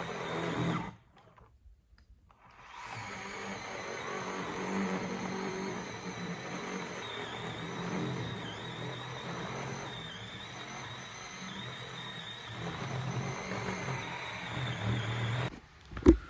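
Achiforce 20 V cordless electric chainsaw running and cutting wood. It stops about a second in, starts again after a pause of about two seconds, and runs for about thirteen seconds with its whine wavering under load.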